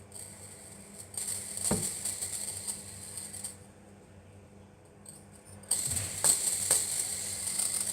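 Fidget spinner spinning with a high-pitched rattling whir from its bearing, in two spells with a quiet gap between them, and a single knock early in the first.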